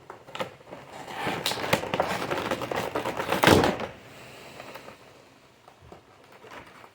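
Stiff plastic toy packaging crackling and rustling as it is handled and pulled at, a dense run of crinkly clicks for about three seconds, then fading to small scattered rustles.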